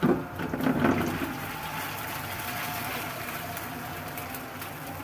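Noodle pakora mixture sizzling in shallow hot oil in a frying pan as portions are added. Louder in the first second, then a steady sizzle with fine crackles.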